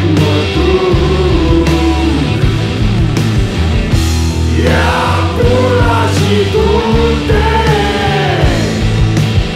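Rock song with singing over bass and drums.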